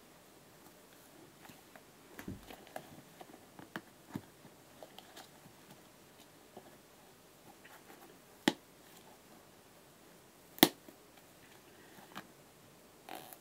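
Quiet handling of a football boot and trainer by hand: soft rustles, scuffs and light taps, broken by two sharp clicks about two seconds apart in the second half, the later one the loudest.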